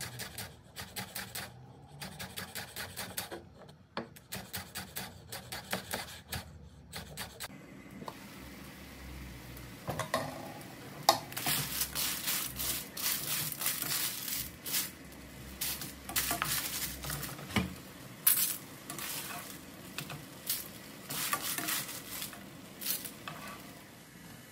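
A chef's knife chopping chives on a wooden cutting board in a quick run of even taps. About eight seconds in this gives way to wedge clams sizzling in an aluminium pan, their shells clattering and scraping as a slotted spatula stirs them.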